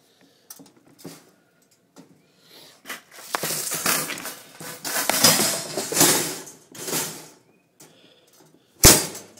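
Wire-mesh cage trap being handled and set into place: light clicks, then a stretch of rattling and scraping wire, and a single sharp clack near the end.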